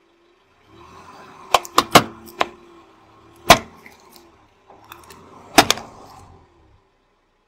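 Plastic LED tea-light candles cracking and snapping one after another as a car tyre rolls over and crushes them: a quick run of four cracks, a single loud one, then two more close together, over the low rumble of the slowly rolling car.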